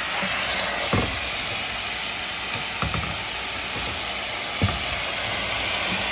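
A whole leg of lamb sizzling steadily as it browns in oil and its own sauce in a large frying pan, with three short knocks of utensils against the pan as the meat is turned.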